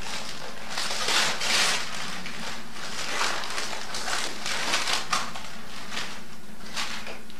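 Gift-wrapping paper rustling and tearing as presents are unwrapped, in irregular bursts, the loudest about a second in.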